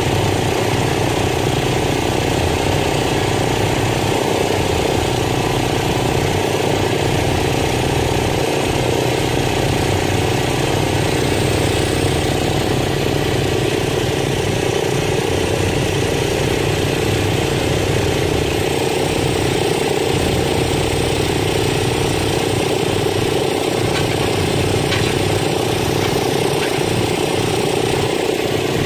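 Homemade powered post driver hammering a wooden dock piling down, a continuous rapid pounding that does not let up, with an engine running steadily underneath.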